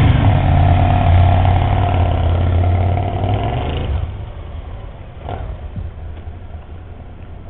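Ducati Monster 1100 EVO's air-cooled L-twin running loud and close as the bike pulls away at low revs. About four seconds in the sound drops off abruptly to the fainter hum of motorcycles riding away down the street.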